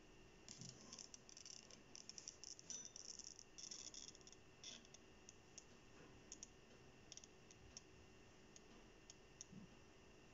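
Faint crinkling and clicking of a glossy paper leaflet handled in the fingers: a cluster of soft crackles in the first five seconds, then a few scattered single clicks, against near silence.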